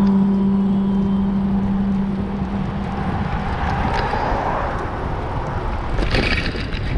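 Road and traffic noise heard from a moving bicycle: a steady low rumble, with a steady humming tone for about the first three seconds and a brief hiss about six seconds in.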